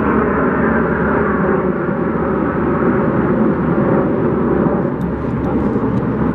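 Jet engine noise from a formation of jets flying overhead: a loud, steady rushing noise with no distinct tones.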